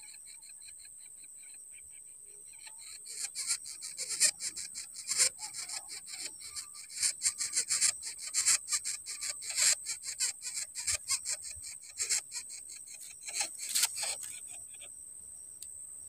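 Dry grass of a nest rustling and crackling in quick, irregular bursts as an adult greater coucal works food into its nestling's gaping mouth. The rasping starts about three seconds in and stops shortly before the end.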